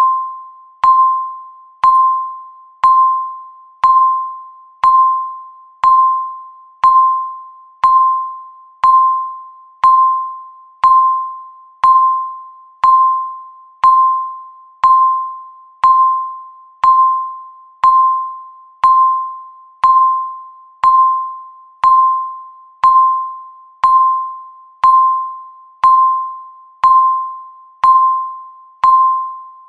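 Countdown timer beeping once every second: a single mid-pitched electronic beep that starts sharply and fades away, repeated evenly, each beep marking one second counted down.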